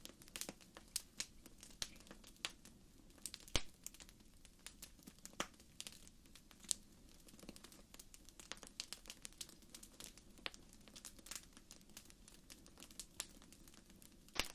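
Campfire crackling: irregular sharp pops and snaps, with one louder snap about three and a half seconds in.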